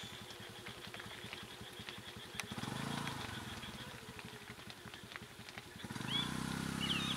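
A vehicle engine idles with a steady low pulsing. A deeper low sound swells in twice, about two and a half seconds in and again near the end. Faint high chirps come near the end.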